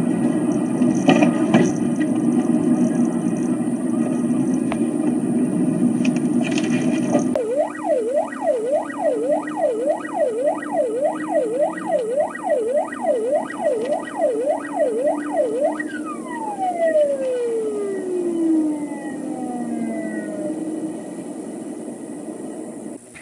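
Engine and road noise inside a pursuing police car. About seven seconds in, its siren comes on with a fast up-and-down yelp about twice a second. Near the end it winds down in a long falling glide.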